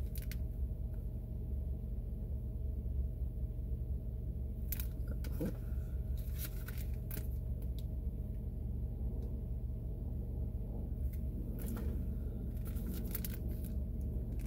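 Plastic-wrapped sticker sheets being handled and shown, with scattered crinkles and taps, loudest around the middle and near the end, over a steady low hum inside a car.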